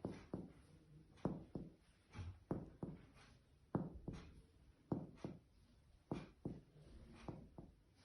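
Finger-on-finger chest percussion on a child along the midclavicular line: about a dozen short taps, mostly in pairs, one pair roughly every second. The examiner is working along the line until the note turns dull, to mark the lung's lower border.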